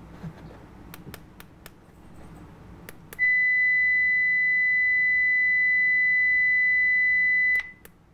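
Satlink 6980 HD field meter: its keys click a few times, then it gives its steady high-pitched beep tone for about four seconds, the signal-lock tone sounding while the meter holds lock on a DVB-T channel. The tone cuts off suddenly with another key click.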